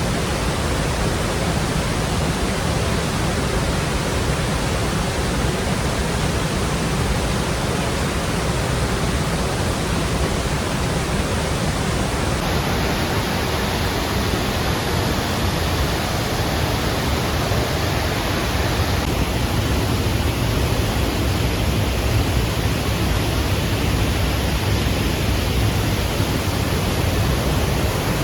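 Steady, loud rush of the Lechfall waterfall, the river Lech pouring over the falls.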